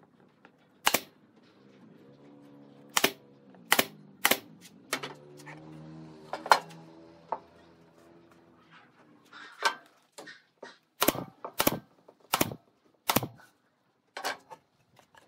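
Pneumatic nail gun firing into plywood: about fifteen sharp shots at uneven intervals, a second or less apart. A low steady hum runs under the shots through the first half.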